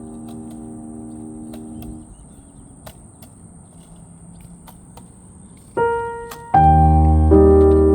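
Calm background music: a soft held chord that fades out about two seconds in, then after a quiet stretch a single piano note and louder piano chords near the end.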